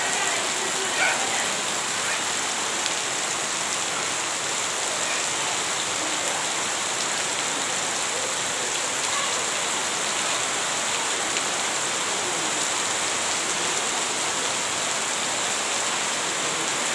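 Rain falling steadily onto waterlogged grass and standing puddles: an even, unbroken hiss.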